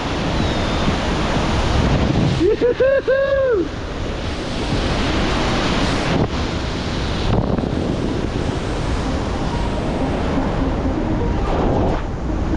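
Steady rushing noise of wind buffeting the microphone. About two and a half seconds in comes a short whooping call of three rising-and-falling notes.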